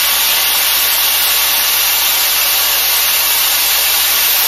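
Shark FlexStyle air styler running with its curling barrel attachment, a steady loud rush of blown air while a lock of hair is wrapped around the barrel.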